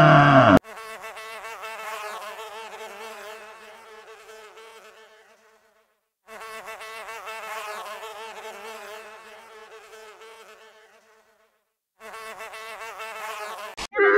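A flying insect buzzing, a wavering hum heard three times with short gaps, the first two fading away. It is preceded by the end of a loud, low animal bellow that cuts off about half a second in.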